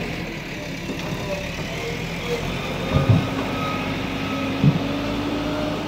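JCB backhoe loader's diesel engine running steadily, with two short low thumps in the second half.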